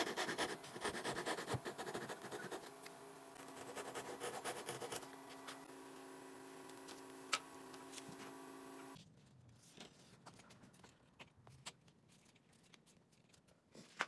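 Small handsaw cutting a dovetail into a wooden board against a template guide: two bursts of quick rasping strokes in the first five seconds, over a steady hum that cuts off about nine seconds in. Light knocks of wood being handled follow.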